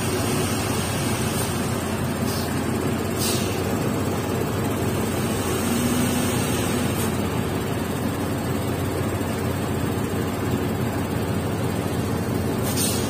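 Diesel dump truck engine running steadily, heard from inside the cab as the truck moves off slowly. A few brief high hisses come and go over it.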